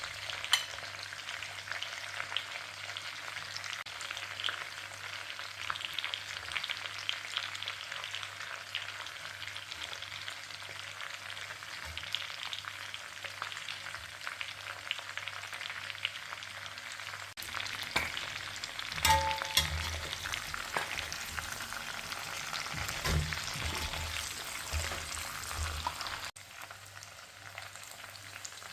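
Mutton frying in hot oil in a karahi, a steady crackling sizzle. In the second half a utensil knocks and scrapes against the pan as the meat is stirred, and the sizzle drops off abruptly near the end.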